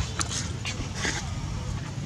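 Baby long-tailed macaque giving a few short, high-pitched squeaks in quick succession in the first second or so, over a steady low rumble.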